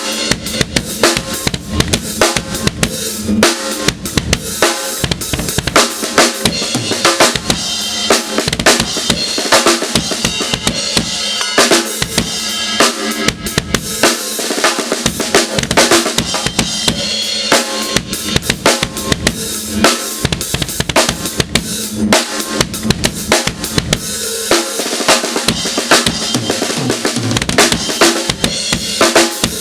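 Drum kit played continuously, with bass drum strokes driven by Tama Iron Cobra pedals fitted with upgraded cams, mixed with snare hits in a dense, steady stream.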